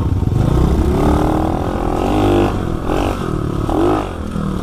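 Tao Tao 110cc pit bike's single-cylinder four-stroke engine revving as it is ridden, its pitch rising and falling several times with the throttle.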